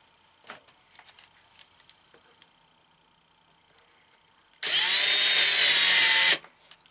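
Cordless drill spinning up and running at steady speed for about a second and a half, then stopping, while pre-drilling a pilot hole for a cabinet latch. Before it, a few faint handling clicks.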